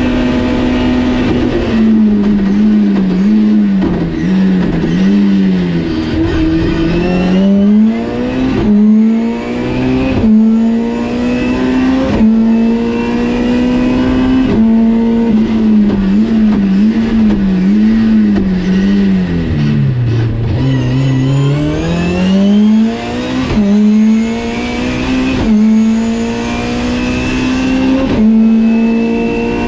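BMW E30 320is rally car's four-cylinder engine, heard from inside the cabin, driven hard at high revs. The pitch holds high, dips and climbs back through short lifts and gear changes, and twice falls well away before climbing back up.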